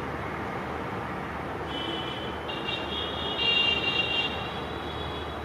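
Distant WAP-4 electric locomotive approaching with its train over a steady rumble. From about two seconds in its shrill horn sounds for roughly two and a half seconds, swelling partway through.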